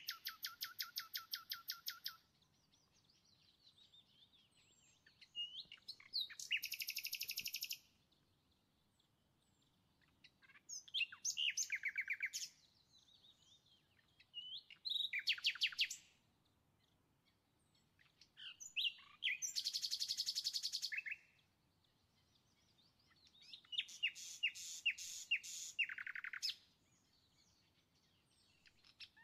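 A small songbird singing: phrases of rapid, high trilled notes about two seconds long, repeated six times with pauses of a few seconds between them.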